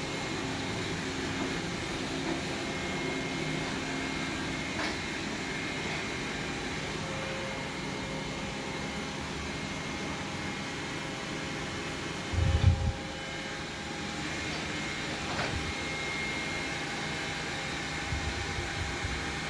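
Xiaomi Vacuum 2C robot vacuum running steadily, its suction motor and brushes whirring. A low thump about twelve seconds in, and a few softer knocks near the end.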